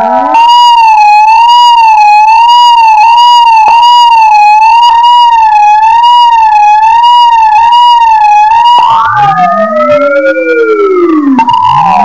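Electronic tone from a signal generator: a loud, steady high tone wavering slowly up and down in pitch about once a second. About three-quarters of the way through, it breaks into swooping glides that sweep down and back up.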